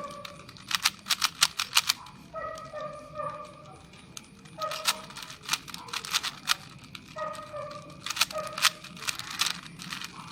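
Plastic Rubik's cube being turned by hand: quick runs of sharp clicking as its layers are twisted, in three bursts.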